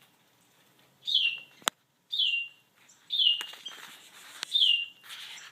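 A small songbird repeating a single short chirp that slides down in pitch, about once a second, four times. There is a sharp click about a second and a half in, and a soft rustling hiss in the second half.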